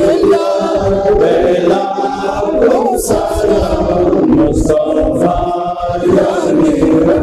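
A group of voices chanting together in long, wavering held notes: a devotional chant.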